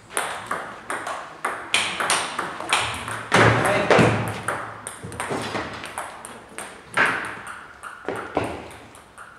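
Table tennis rally: the celluloid ball clicks sharply off the rackets and table a few times a second. About three and a half seconds in comes the loudest, fuller noise as a player dives to the floor for the ball, and after that the clicks thin out as the point ends.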